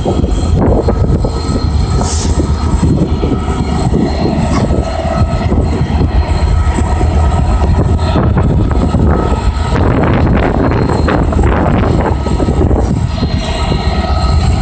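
Freight train rolling past, a loud steady rumble of wheels on rail with scattered clicks and faint thin high squeals from the wheels.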